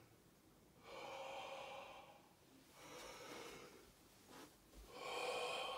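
A man breathing slowly and deeply through an open mouth: three faint breaths, each about a second long, with short pauses between them.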